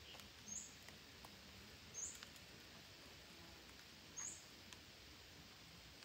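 Three short, faint high squeaks about two seconds apart, soft calls of red-breasted parakeets, over a quiet background hiss with a few faint ticks.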